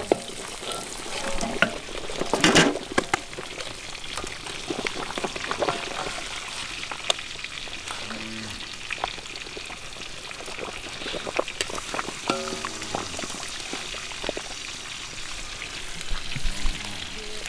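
Water boiling in a wok with pork belly in it, a steady bubbling hiss, with metal tongs clicking against the pan as the pieces are lifted out; a loud clatter about two and a half seconds in.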